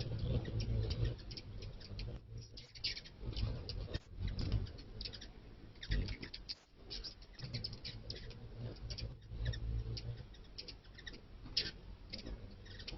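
Small wings whirring at a nectar feeder in bursts of about a second as visitors hover and leave, over a stream of sharp clicks and ticks.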